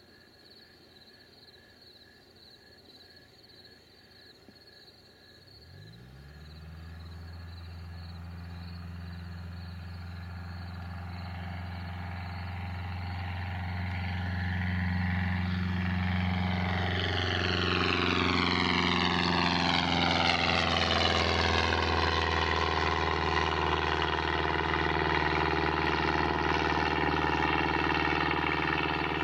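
Cessna 162 Skycatcher's four-cylinder Continental O-200 engine and propeller coming up to takeoff power about six seconds in, then growing steadily louder as the plane lifts off and climbs past, its pitch falling as it goes by. Faint crickets chirp before the engine comes in.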